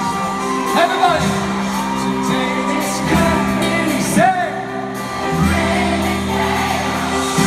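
Live pop band playing with a male lead singer, recorded from the audience in an arena.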